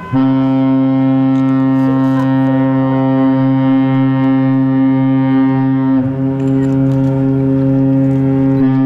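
A large cruise ship's horn sounding a long, steady, deep blast that starts abruptly. It wavers briefly about six seconds in and keeps going: the ship's signal on leaving port.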